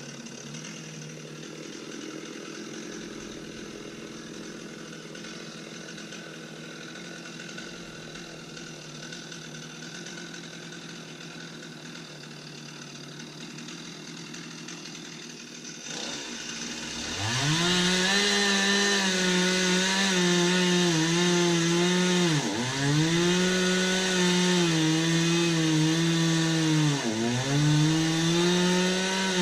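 Chainsaw engine: a quieter steady running sound, then a little over halfway through it revs up to full throttle and stays loud, its pitch dipping twice as it bogs down in wood while cutting.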